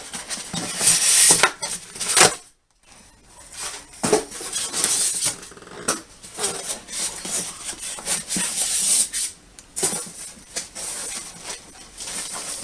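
Handling noise: packaging and small plastic parts rustling and clattering, with the microphone rubbing against fabric. The sound cuts out for a moment about two and a half seconds in.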